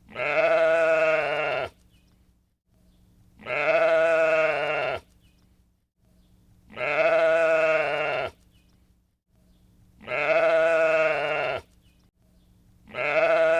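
Sheep bleating: five long bleats about three seconds apart, each one alike, with a slight drop in pitch as it ends.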